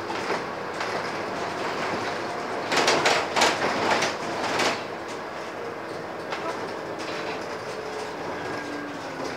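Cabin noise of a Scania N230UD double-decker bus on the move: a steady drone of engine and drivetrain, with a loud bout of rattling and clattering from the body and fittings between about three and five seconds in as the bus jolts.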